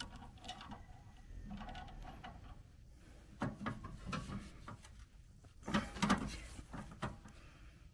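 Pliers working the steering drag link at a riding lawnmower's front wheel spindle: metal clinks and scrapes of tool on linkage, with a few sharper knocks about three and a half and six seconds in.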